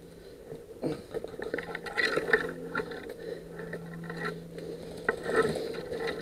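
Close movement noise from a player's gear: irregular scrapes, knocks and rattles, busiest between about one and two and a half seconds in and again near the five-second mark, over a faint steady hum.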